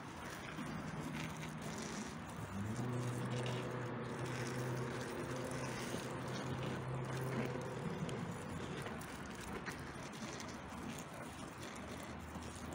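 Water spraying from a cardboard toy fire truck's small pump onto a smouldering cardboard house, a steady hiss. A low steady hum comes in about two and a half seconds in and stops about eight seconds in.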